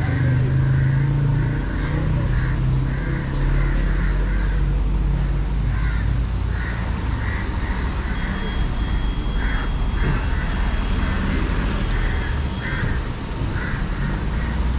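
Low, steady street-traffic rumble from vehicle engines, with crows cawing over it in a long run of short, repeated calls. A thin, steady whine sounds for a few seconds in the middle.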